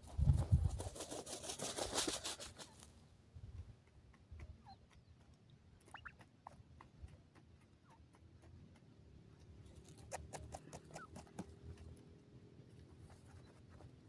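Grey francolins dust-bathing in loose dry soil: a quick flurry of rustling and flapping during the first few seconds, then scattered soft scratches and pecks in the dirt, with a second shorter flurry about ten seconds in.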